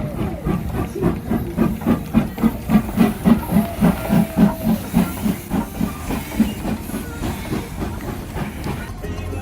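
Steam locomotive working past, its exhaust chuffing in an even beat of about three a second over a steady hiss. The beats grow louder toward the middle and fade away about two-thirds of the way through.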